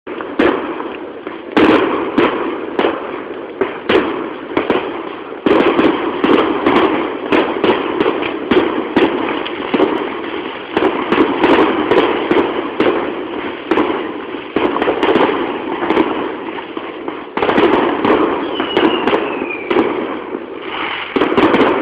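Fireworks going off, recorded on a mobile phone: a loud, dense, continuous crackling and popping with many sharp bangs, and a single whistle falling in pitch near the end.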